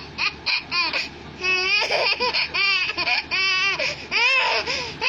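A one-year-old baby laughing at someone's sneezing: a run of short, quick giggles, then longer high-pitched laughs.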